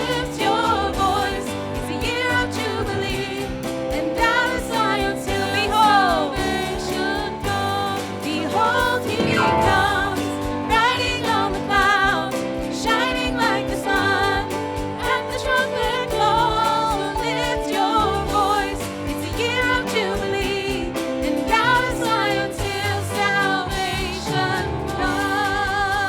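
Church worship music: singing with vibrato over sustained instrumental accompaniment.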